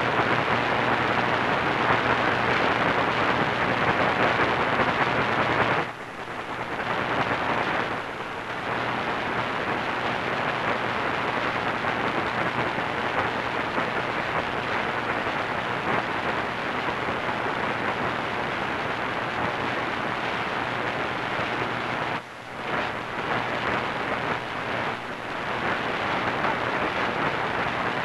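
Static hiss and crackle from an AM radio tuned to a distant medium-wave station on 1490 kHz, with no programme coming through, over a faint steady low hum. The noise drops away briefly twice, about six seconds in and again just past twenty-two seconds.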